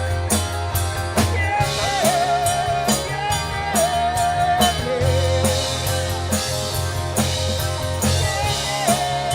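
Rock band playing live: a steady drum beat and a bass line under a held, wavering lead melody.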